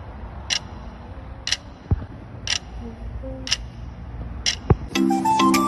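Clock-like ticking, one sharp tick a second, with a deep falling swoop twice; music comes in about five seconds in.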